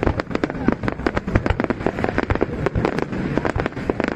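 Fireworks going off in a rapid, irregular string of sharp bangs and cracks, several a second, over a continuous crackle.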